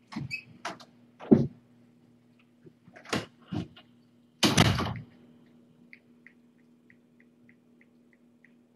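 A room door being handled and shut: a run of knocks and thumps, the loudest about a second in, then a short rushing sweep about four and a half seconds in. Faint, even ticks follow, about three a second.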